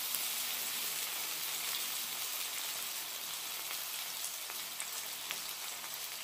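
Ribeye steak, lobster tail and fried rice sizzling steadily on a hot griddle, with a few faint light clicks.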